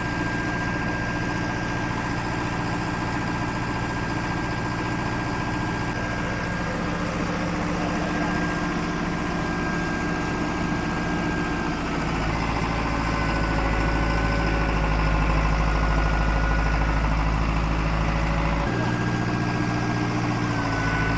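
A heavy machine's engine running steadily. Its note shifts twice, about twelve seconds in, when a deeper rumble takes over, and again near the end.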